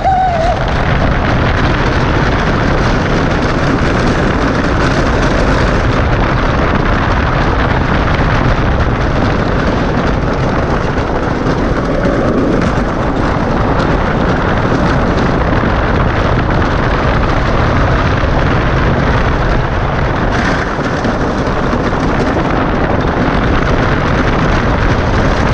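A wooden roller coaster train running at speed, its rumble and rattle on the track mixed with heavy wind noise on the microphone of a rider's camera. The noise is loud and steady throughout.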